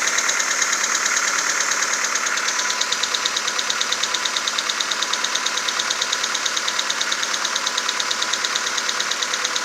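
VW Golf 4's 1.4 AHW four-cylinder petrol engine idling with a rapid, even ticking knock. The owner hears this knock mainly on a cold start; once the engine is warm it fades to a faint clicking with a shuffling sound.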